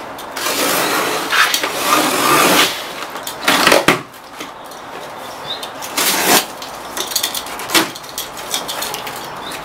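Box cutter slicing the packing tape on a long cardboard shipping box, with the cardboard scraping and knocking as the box is shifted on the wooden workbench. The sound comes as a string of short, sharp rips and knocks, the loudest ones about three and a half and six seconds in.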